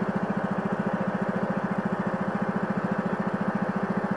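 Small boat engine running steadily at an even speed, with a rapid, regular putter.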